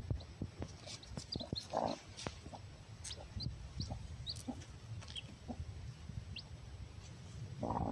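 Newly hatched chick giving scattered short, high cheeps under a broody Aseel hen. The hen gives low clucks about two seconds in and again near the end, with light clicks and rustling in the straw.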